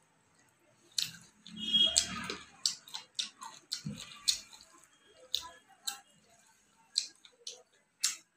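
Close-up mouth sounds of someone eating rice and curry by hand: wet chewing with an irregular run of sharp lip-smacks and moist clicks.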